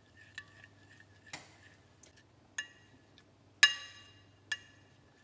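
A stirring utensil clinking against the side of a bowl while batter is stirred. Four ringing clinks, the loudest about three and a half seconds in, with a few fainter ticks between.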